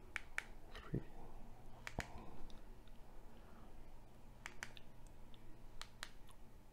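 Keypad buttons on a Retevis RT85 handheld radio being pressed with a thumb to enter a frequency: a series of faint, sharp clicks at an irregular pace, some in quick pairs, with a soft thump about a second in.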